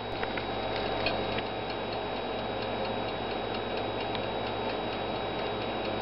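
Toaster oven ticking lightly over a steady background hum.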